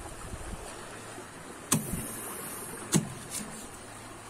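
Knife cutting a Spanish mackerel on a boat deck: two sharp knocks of the blade a little over a second apart, about halfway through, with a brief scraping hiss between them and a lighter tap just after. A steady low hum runs underneath.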